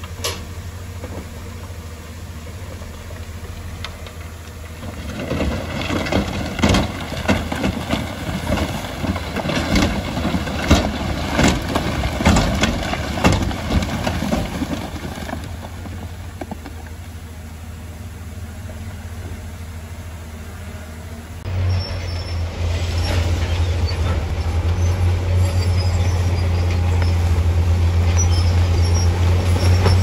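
Bulldozer's diesel engine running steadily, with a dense run of crunching and clattering impacts from about five to fifteen seconds in. About two-thirds of the way through, the engine gets abruptly louder and holds there.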